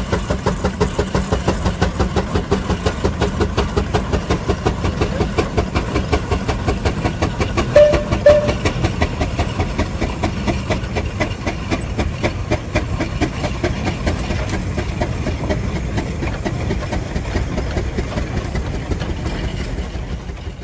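Steam engine chuffing at an even beat of about four puffs a second, with a steady hiss of steam under it. Two brief high notes sound close together about eight seconds in.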